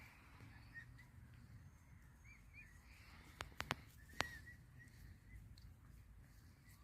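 Emu chicks giving faint, short whistling peeps every so often. A few sharp clicks come in quick succession about three and a half to four seconds in.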